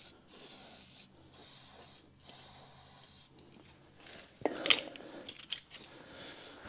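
Several short hissing spurts from an aerosol can of rust penetrant sprayed onto a seized injector nozzle, followed about four seconds in by a few sharp metallic clinks of a tool on the fitting.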